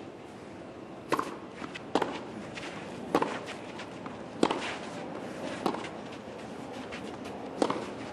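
Tennis rally: a ball struck back and forth by rackets, six sharp pops about a second or so apart over steady low background noise.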